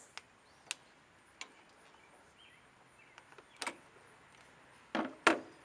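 Scattered sharp metallic clicks from pliers and a spring hose clip as a fuel line is worked back onto the filter neck, with a louder clicking snap about five seconds in.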